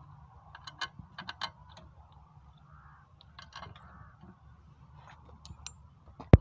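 Scattered metallic clicks and clinks of hand tools working on diesel engine parts, with one sharp, loud metal knock near the end.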